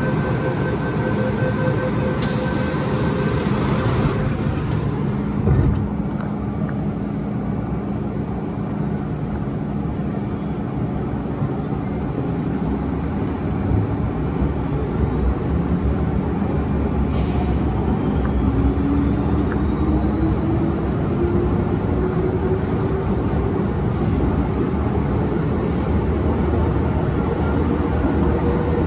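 MTR M-train running, with steady wheel and track noise and the whine of its traction motors. A steady motor tone cuts off about four seconds in. Over the last ten seconds a whine rises steadily in pitch: the motors are powering the train up to speed.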